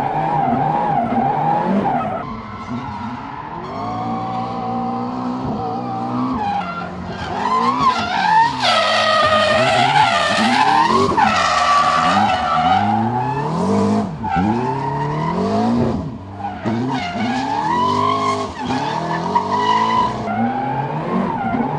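McLaren MP4-12C GT3's 3.8-litre twin-turbo V8 revving hard in a drift, its pitch rising and dropping again and again through quick gear shifts. The tyres squeal as the car slides sideways, loudest about 8 to 12 seconds in.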